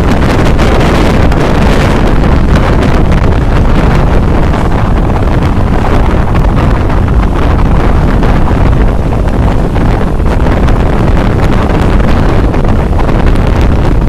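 Strong wind buffeting the microphone: a loud, steady rumbling rush over moving sea air.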